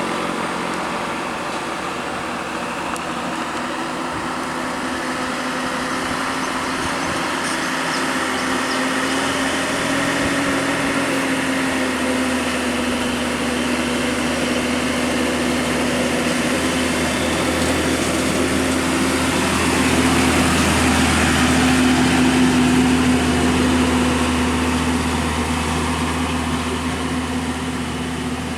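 Road traffic dominated by a heavy vehicle's engine running at a steady pitch, over the hiss of passing traffic, growing louder about twenty seconds in.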